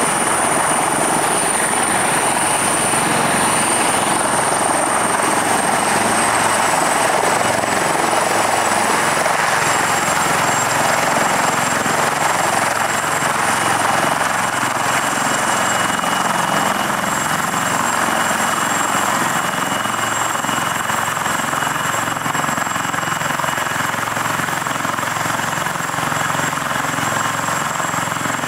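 British Army AW159 Wildcat helicopter hovering low and settling onto the ground: steady rotor noise with a high turbine whine that drops slightly in pitch several seconds in, growing a little quieter in the second half.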